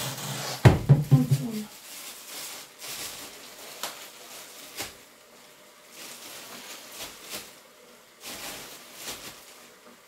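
A sharp knock about a second in, then scattered clicks and short rustles of a clear plastic bag being handled and opened by hand.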